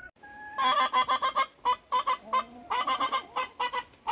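Chicken hen calling loudly in rapid runs of repeated squawks: one run in the first two seconds, another a little later, and a short one near the end.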